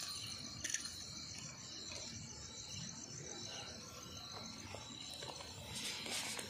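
Crickets chirring steadily in a night-time insect chorus, with one short click about a second in.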